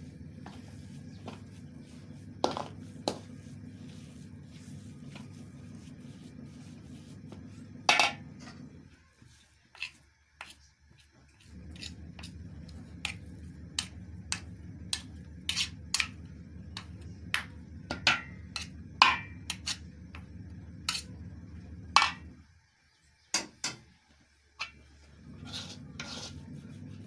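Metal spoon clinking and scraping against a steel tray as a crumbly ground flaxseed mixture is stirred, with irregular sharp clinks, the loudest about eight seconds in and around two-thirds of the way through. Under it runs a steady low hum that drops out twice.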